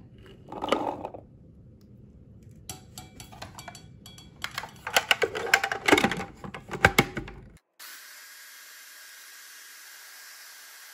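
Plastic clicks and knocks as the food processor's lid is fitted onto the bowl and latched, then, from about eight seconds in, the food processor's motor runs steadily, blending the hummus.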